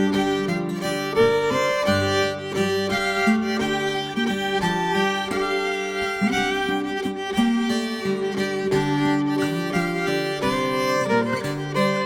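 Instrumental break of a traditional English folk song: a fiddle playing the tune over string accompaniment, with no singing.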